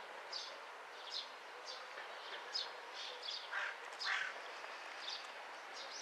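Small birds chirping repeatedly: short, high, falling chirps about twice a second, with two louder, lower calls a little past the middle, over faint steady outdoor background noise.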